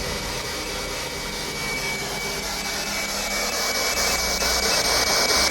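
Steady rushing noise with a faint, thin high tone held under it. The hiss grows a little louder and brighter toward the end.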